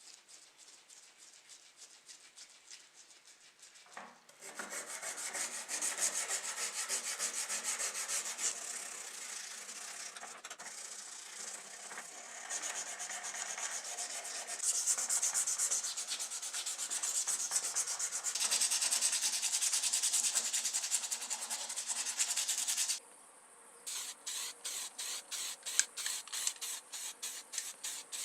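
Hand rubbing on a model car's body with an abrasive or scrubbing pad. It starts as faint even strokes and becomes dense, continuous rubbing about four seconds in. After a brief pause near the end it turns into separate strokes, about four a second.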